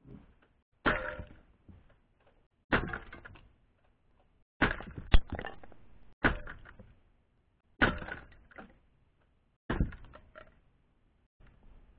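Air gun pellets striking plastic toy figures and the target stand, seven sharp hits about one and a half to two seconds apart, each followed by a short clatter of knocked-loose pieces. The loudest hit comes about five seconds in, right after another.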